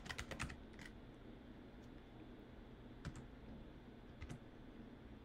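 Faint typing on a computer keyboard: a quick run of keystrokes in the first half second, then single key clicks spaced out over the next few seconds.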